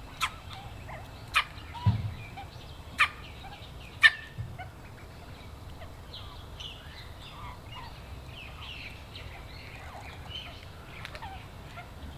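Australian magpie sneezing four times over about four seconds, short sharp puffs that expel water and debris from its nostrils. Faint scattered bird chirps follow.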